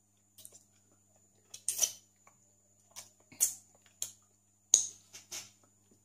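Wet mouth smacks and finger-sucking clicks from someone eating soft durian flesh, about eight short smacks at uneven intervals.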